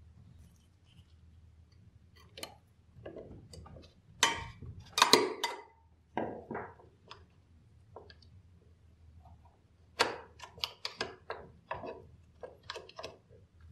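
Metal parts of a 1930 aluminium syringe clicking and clinking as they are handled and fitted together. The clicks come in clusters: the loudest about four to five seconds in, and a quick run of clicks near the end.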